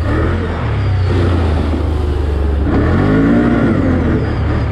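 Can-Am Outlander ATV engine running steadily as the quad rides along a dirt track, with a brief rise and fall in pitch about three seconds in.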